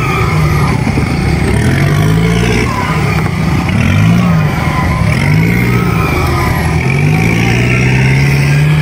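Mitsubishi Pajero short-wheelbase's 4D56 four-cylinder diesel engine revving up and down under load as it climbs through deep mud mounds. The pitch rises and falls several times, then climbs steadily near the end.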